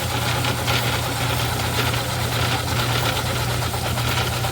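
Craftsman 109 metal lathe running steadily at a higher speed, its belt moved over one pulley: a constant low hum with a noisy whir above it.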